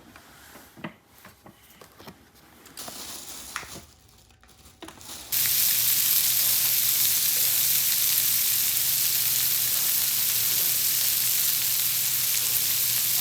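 A few faint clicks and knocks, then about five seconds in a loud, steady sizzling hiss begins abruptly, like food frying on a hot surface.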